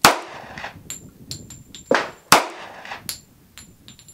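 Kimber Ultra Carry 1911 pistol in .45 firing: two loud shots, one at the start and one about two and a half seconds in, with a quieter bang just before the second. Fainter cracks and a thin metallic ring come between the shots.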